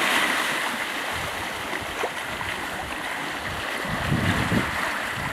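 Steady rushing hiss of sea water streaming past a sailing catamaran's hulls as it moves under sail.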